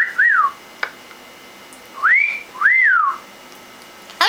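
Parrot whistling: a short rising-and-falling note at the start, then about two seconds in a two-note whistle, a rising note followed by one that rises and falls.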